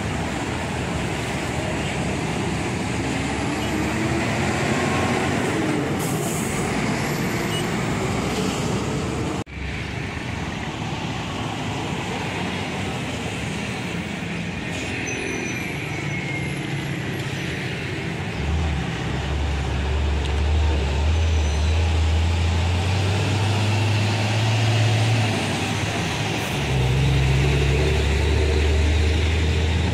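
Heavy road traffic with diesel trucks passing. Just past halfway a loud, low diesel engine drone comes in and steps up and down in pitch as heavy trucks draw near.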